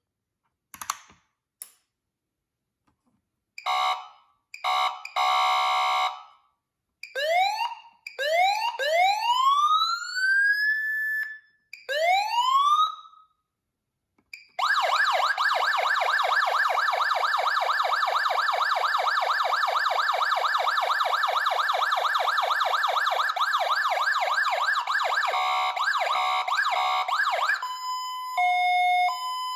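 Code 3 Z3 electronic siren cycling through its tones: a few short bursts, then a run of rising wail sweeps. After a short pause it gives a long, fast warbling tone, and near the end it switches to a two-note hi-lo alternation.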